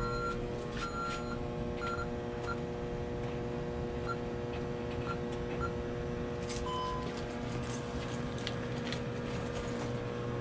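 Security alarm keypad beeping: a run of short high beeps of one pitch, some held a little longer, in the first couple of seconds, then only occasional single chirps. A steady hum continues underneath.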